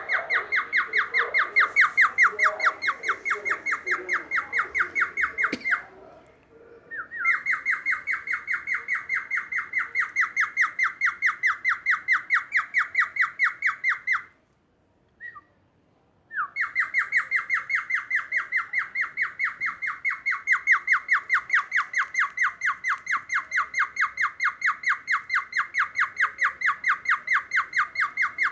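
Cockatiel imitating a police siren: a rapid, evenly pulsing high call repeated over and over, with two short breaks before it starts again.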